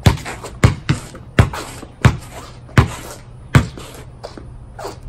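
A basketball bouncing on a concrete patio: about seven sharp bounces, one every half to three-quarters of a second, then a couple of fainter ones near the end.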